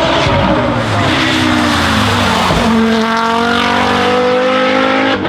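Turbocharged five-cylinder engine of an Audi quattro hill-climb race car, loud and close. Its pitch falls as the revs drop for over two seconds, then after a brief dip it rises steadily as the car accelerates, and the sound cuts off suddenly near the end.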